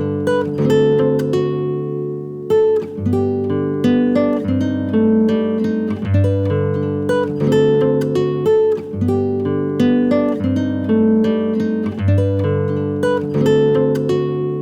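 Background music: a plucked guitar playing a repeating pattern of notes, with no vocals.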